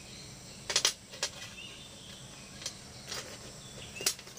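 Small stainless steel speargun trigger parts being handled: a few light clicks and clinks as the metal pieces knock together and are set down on the table, with a little plastic bag rustle.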